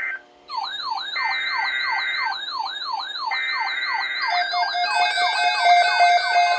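Several electronic emergency-alert tones sounding at once: a siren-like sweep rising about four times a second over a warbling high tone, and a steady beep about a second long every two seconds. More alert tones join about four seconds in and make the whole thing louder and denser.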